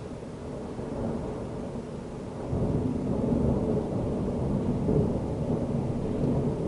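Long rolling rumble of thunder from a severe thunderstorm. It builds from the start and grows louder about two and a half seconds in, then keeps rumbling.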